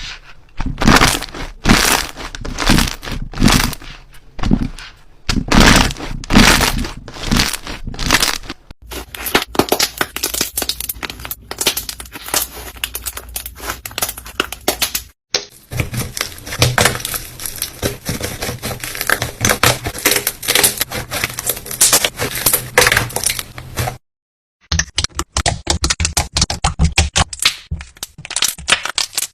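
Slime being squished and stretched by hand, crackling and popping, in several separate clips. The first clip has spaced squeezes about twice a second; the later clips have denser, continuous crackling.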